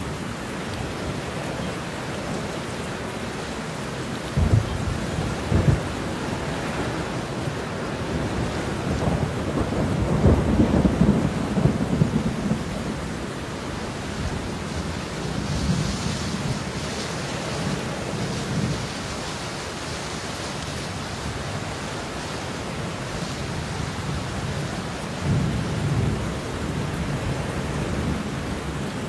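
Steady heavy rain with thunder: two short, sharp cracks about four and a half and six seconds in, then a long rolling rumble around ten to twelve seconds, with softer rumbles later on.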